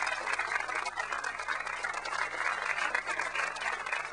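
Crowd murmur: many voices at once, with scattered light clicks and knocks.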